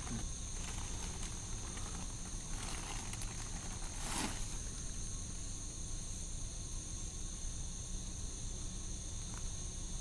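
Crickets trilling steadily in a night-time chorus, with a brief rustle about four seconds in.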